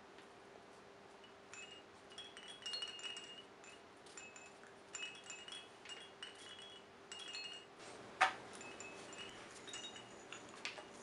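Small chimes in a baby swing's hanging toys tinkling in irregular clusters of short, high notes as the baby bats at and pulls the toys, with one sharp click about eight seconds in.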